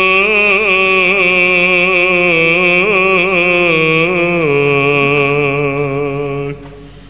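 A man chanting the Orthodox Gospel reading, drawing out one long melismatic note with small ornamental turns. The pitch steps down about four and a half seconds in, and the voice breaks off shortly before the end.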